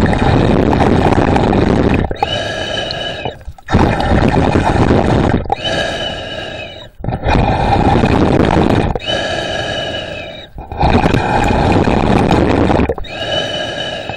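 A snorkeler breathing slowly and evenly through a snorkel tube, heard close up. There are about four breaths, roughly one every three and a half seconds, each a rushing blow of air followed by a hollow, whistling draw through the tube.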